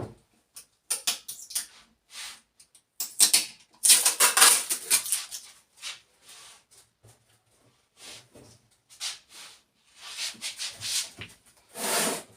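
Irregular rustling, scraping and clattering of cardboard and plastic packaging being handled and pulled off a small refrigerator, loudest about three to five seconds in.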